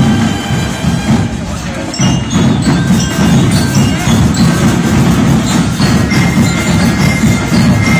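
Marching band playing: a dense pounding of drums under high, bell-like mallet notes. The band dips briefly about a second in and comes back louder around two seconds in.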